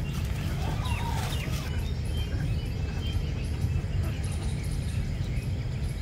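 Birds chirping over a steady low rumble, with a few quick rising and falling chirps about a second in and short high calls in the middle.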